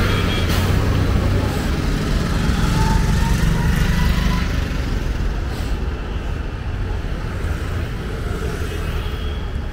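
Street traffic: vehicle engines running with a steady low rumble, heaviest in the first half and easing slightly after about five seconds.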